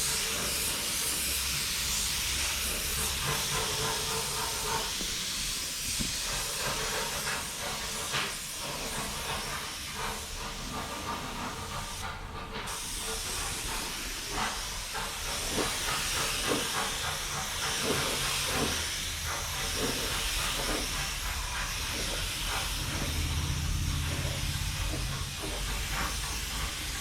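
Compressed-air spray gun hissing steadily while spraying undercoating onto a car body, with the hiss breaking off briefly about twelve seconds in.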